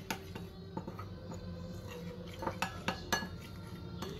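Metal spoon stirring flour into milk in a ceramic bowl, mixing a slurry, with irregular light clinks of the spoon against the bowl, a few sharper ones in the second half.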